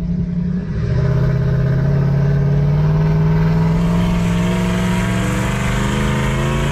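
Toyota 1UZ-FE VVTi 4.0-litre V8 in a Mitsubishi Delica van, running with the exhaust removed and a shortened air intake, heard from inside the cabin while driving. The engine gets louder about a second in and pulls with its note climbing slowly in pitch.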